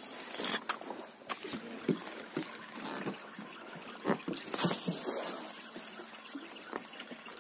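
Quiet ambience on a drifting wooden boat at sea: a steady hiss with scattered light knocks and clicks throughout.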